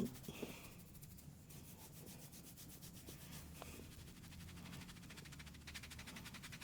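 Hands rubbing briskly over hair and scalp during a head massage: a fast, even rubbing rhythm that grows stronger near the end.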